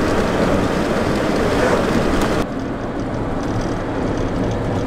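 A vehicle driving along a road: steady road and wind noise. The hiss drops suddenly about two and a half seconds in.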